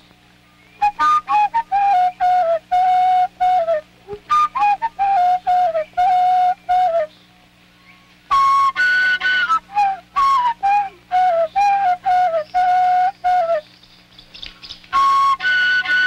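Background music: a flute-like wind instrument playing a melody of short, quickly repeated notes with small downward slides, pausing briefly a few times, over a low steady hum.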